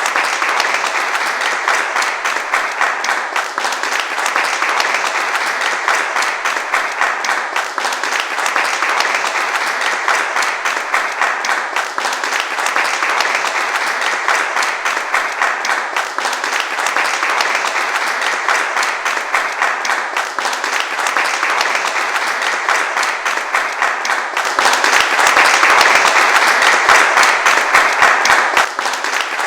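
A large crowd applauding, a dense steady patter of many hands clapping. Near the end it swells louder for a few seconds, then drops back suddenly.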